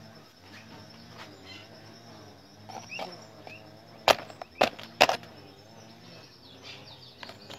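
Sharp clicks and knocks, the loudest three close together about four to five seconds in, over a low wavering background murmur with a few short high chirps.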